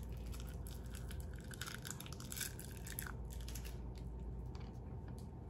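Faint, irregular crinkling and crackling as a hard fruit candy and its wrapper are handled and the candy is eaten.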